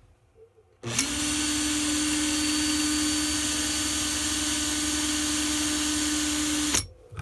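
Power drill running at one steady speed for about six seconds, starting about a second in and stopping abruptly, with a steady whine over a hiss. It is spinning a length of nichrome wire held at a swivel to straighten it.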